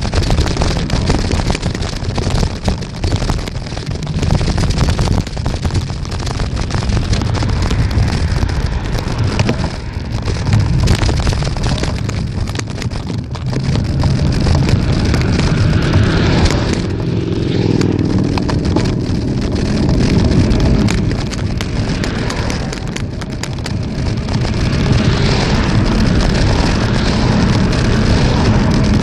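Wind buffeting the microphone of a camera on a moving bicycle, a loud steady rumble, with road traffic passing.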